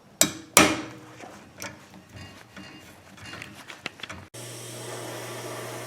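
Hand tools working on a metal wheel hub as a part is unscrewed: two sharp metallic knocks near the start, then scattered light ratchet-like clicking. About four seconds in this cuts off abruptly to a steady hiss with a low hum.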